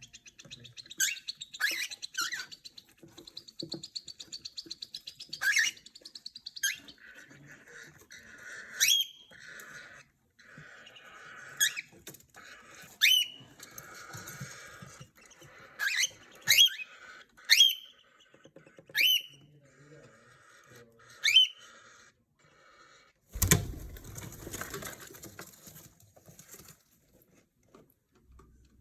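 Pet birds chirping: a dozen or so short, sharply rising whistled calls over soft chatter, then a burst of rustling for a few seconds near the end.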